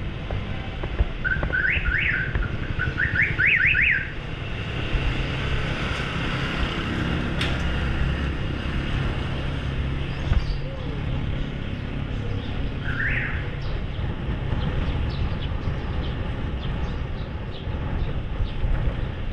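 Steady low wind and road rumble from a bicycle ride through traffic. Quick rising chirps sound in two short runs between about one and four seconds in, and once more around thirteen seconds.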